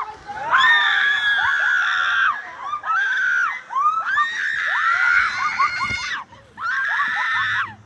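Riders screaming as their raft speeds down an enclosed water slide: long, high-pitched thrill screams from more than one voice, overlapping, broken by a few short pauses.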